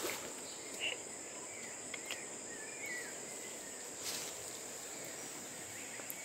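Steady high-pitched drone of rainforest insects, with a few brief chirps in the first half.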